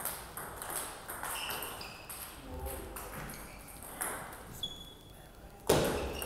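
Table tennis ball clicking on the table and paddle, a series of light ticks between and into a point, with one loud sharp knock near the end.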